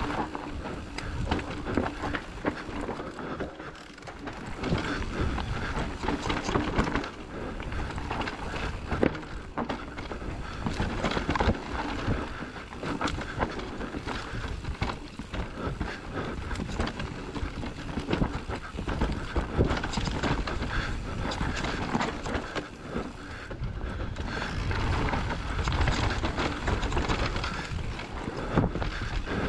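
Trek Rail electric mountain bike riding fast down a dirt forest trail: tyres rolling and scrubbing over loam and roots, with frequent rattles and knocks from the bike as it bounces over rough ground.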